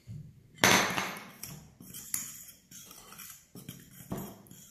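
A sharp glassy knock a little over half a second in, then a metal fork scraping and clicking against a glass mixing bowl as it stirs flour, with a soft scrape or tap every half second or so.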